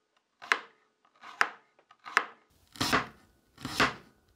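Stainless chef's knife cutting straight down through Korean radish onto a wooden cutting board: five crisp cuts, roughly one a second, the last two longer and fuller.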